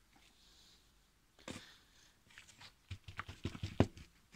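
Hands pressing and patting loose potting soil in a plastic plant pot: soft rustles and scattered knocks, coming thicker about three seconds in, with one sharper knock near the end.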